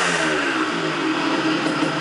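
Yamaha DT 180N's two-stroke single engine dropping back from a blip of the throttle about half a second in and settling to a steady idle. At standstill it carries the rattle the owner is chasing, which eases when the clutch is pulled in.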